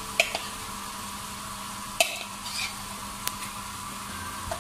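Chicken and masala sizzling gently in a steel karahi while a steel spoon spreads yogurt over it, the spoon knocking sharply against the pan three times.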